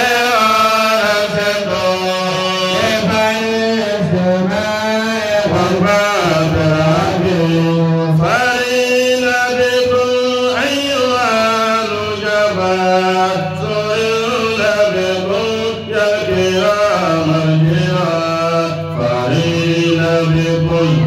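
A man chanting a kasida, a devotional Islamic poem, solo in long ornamented lines that bend up and down in pitch, with only short breaks for breath.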